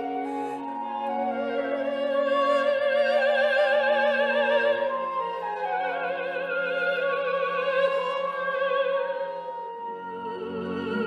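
Classical music: an operatic voice sings long held notes with wide vibrato over an orchestral accompaniment.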